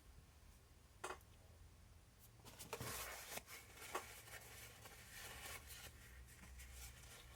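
Faint handling of small RC shock parts at a workbench: a sharp click about a second in, then several seconds of light rustling and small clicks.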